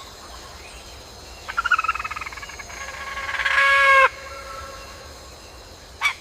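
Pulsed, trilling animal calls over a steady wetland background: a short trill about a second and a half in, then a longer one that grows louder and cuts off suddenly about four seconds in, and two short chirps near the end.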